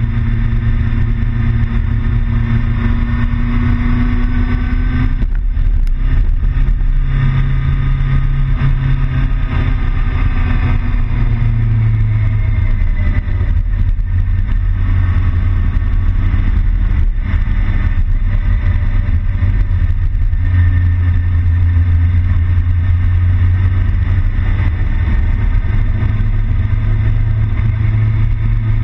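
Motorcycle engine running steadily on the move, its pitch stepping up and down several times as the throttle and gears change, over a steady rush of wind and road noise.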